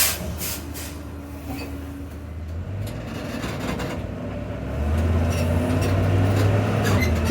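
Tour tram's engine running with a low hum, getting louder about five seconds in as the tram gets under way. A sharp click right at the start.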